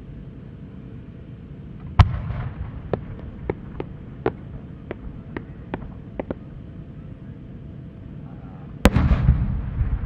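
A Japanese firework shell, a triple-pistil colour-changing chrysanthemum with rising attachments: a sharp launch thump from the mortar about two seconds in, then about nine quick sharp cracks from the small attachments as it climbs. Near the end comes the main shell's burst, the loudest bang, with a rolling rumble after it.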